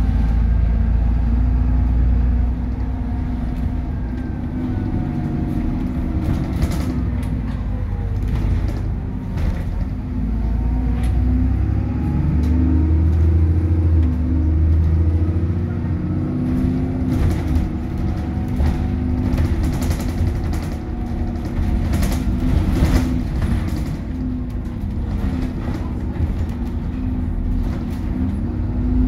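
Alexander Dennis Trident 2 / Enviro 400 double-decker bus's diesel engine running under way, heard from inside the lower-deck saloon: a steady low rumble whose pitch rises and falls with engine speed, loudest about halfway through, with occasional rattles and knocks from the body.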